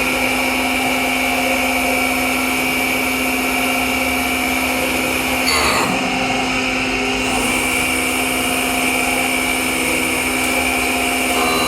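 DoAll surface grinder running in automatic mode, its electric motors and coolant pump giving a steady hum and whine. The sound shifts briefly about halfway through.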